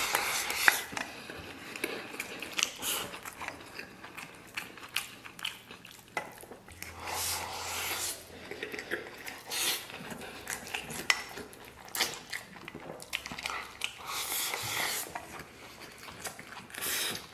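A man eating rice mixed with fried pork liver and lung straight from the rim of a stainless steel bowl: wet chewing and the sound of food being shoveled in, with wooden chopsticks clicking against the bowl again and again.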